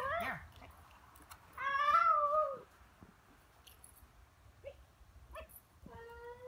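A puppy whining in long, high-pitched, arching cries: one tails off at the very start, another lasts about a second about two seconds in, and a third begins near the end.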